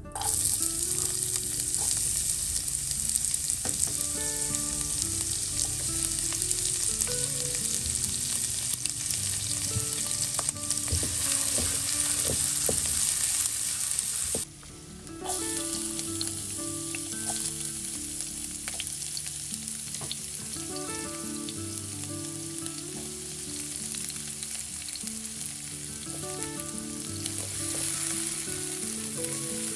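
Chopped shallots and garlic frying in hot oil with sliced red chilies, a steady sizzle as they are stirred with a silicone spatula. The sizzle starts sharply as they go into the pan, drops out briefly about halfway, then carries on.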